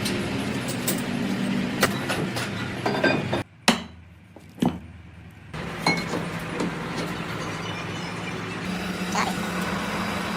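Machine-shop work: a steady machine hum with repeated metal clinks and knocks. The hum cuts out abruptly for about two seconds three and a half seconds in, broken by a sharp knock, then comes back.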